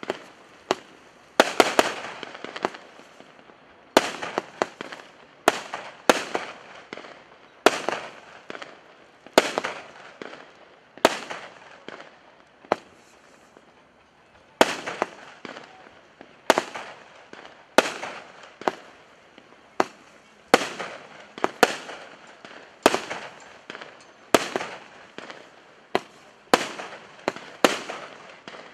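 A 25-shot, 1.25-inch daytime firework battery (cake) firing shot after shot: a string of sharp bangs about one a second, each with a short fading tail.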